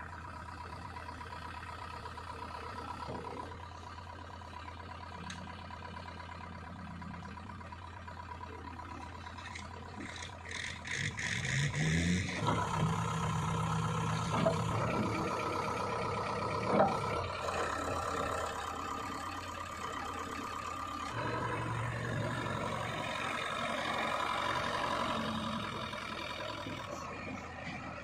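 JCB 3DX backhoe loader's diesel engine running steadily; about twelve seconds in it revs up and runs louder under load as the front bucket works the dirt, with one sharp clank a few seconds later.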